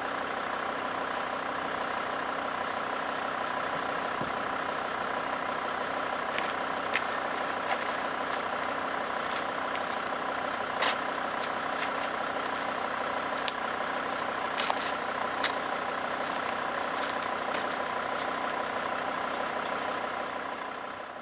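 A vehicle engine idling steadily, with a constant whine, and a few sharp clicks in the middle.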